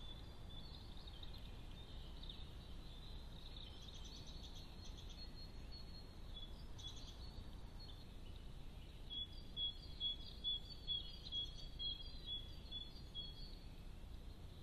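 Birds chirping and calling over a steady low hiss from a trail camera's microphone. From about nine seconds in, one bird repeats a short high note about twice a second.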